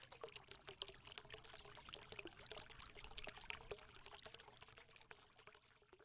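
Faint sound effect of trickling, bubbling water, made up of many small irregular crackling clicks.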